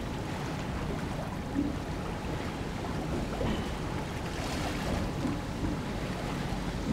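Steady low rumble of wind buffeting the microphone over open water, with no distinct event standing out.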